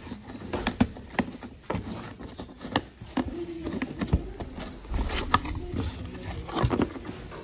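Cardboard shipping box being opened by hand: irregular scrapes, taps and rustles as the flaps are pulled back.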